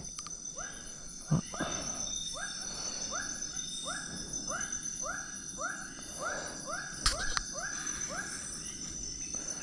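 Night jungle chorus: insects keep up a steady high trill while an animal repeats a short rising call about twice a second. A couple of soft handling knocks come through.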